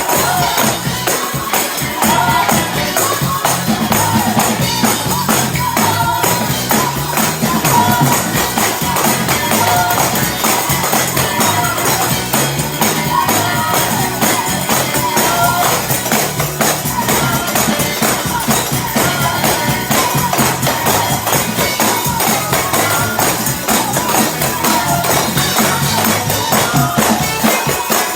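Many tambourines shaken and struck fast and loud in a Pentecostal praise break, their jingles forming a dense, continuous crackle over a driving bass and organ-like line.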